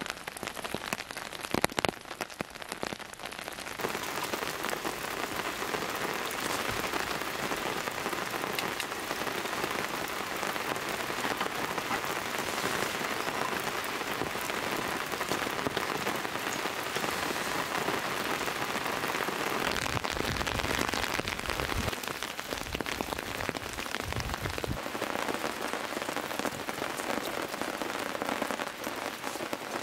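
Heavy rain pattering steadily on a canvas tent and tarp, with separate drips standing out in the first few seconds. Two brief low rumbles come past the middle.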